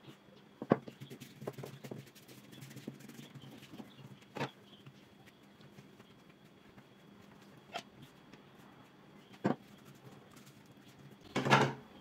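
Hand-handling sounds of making börek: soft rustling of thin yufka pastry sheets, with a few sharp taps and clicks on a glass tabletop spaced seconds apart. A louder, longer rustle comes near the end.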